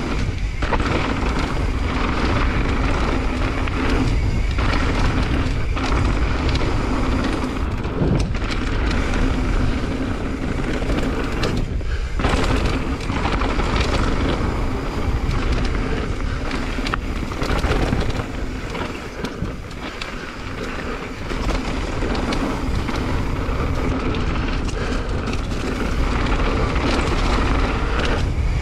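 Wind rushing over the camera's microphone while a mountain bike descends a dirt trail, with the tyres rolling and the bike rattling over bumps. The rush eases for a few seconds past the middle.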